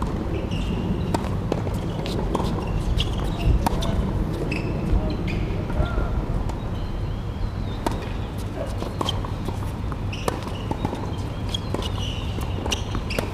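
Tennis ball bouncing on a hard court and struck by rackets: a scatter of short sharp knocks over a steady low rumble, with faint distant voices.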